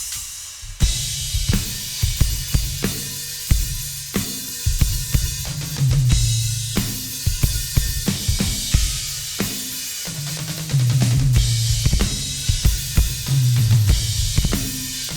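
A drum kit being played, with kick drum, snare and cymbal hits in a beat. Low held notes come in underneath at times.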